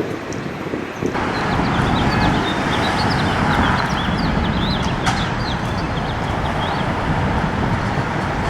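Many small birds chirping in short, quick calls over a steady low rumble of outdoor background noise; the chirping comes in abruptly about a second in, with a single sharp click about five seconds in.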